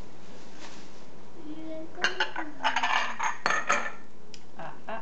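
Kitchen utensils clattering on a counter: a quick run of sharp clinks and knocks about two seconds in, lasting under two seconds.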